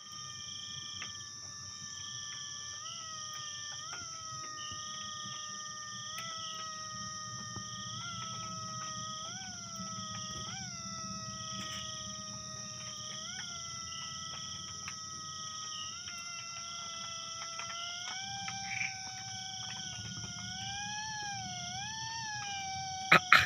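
A person imitating a mosquito's whine: a thin, continuous buzzing hum that wavers and lifts briefly in pitch every second or so, over a steady drone of chirping insects. Two sharp clicks come at the very end.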